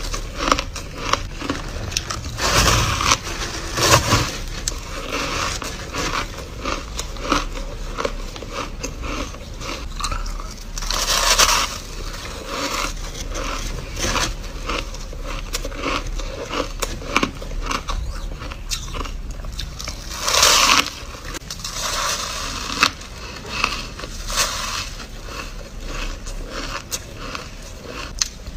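Crushed ice being bitten and chewed close to the microphone: a dense, continuous run of crisp crunches and crackles, with a few louder bites standing out.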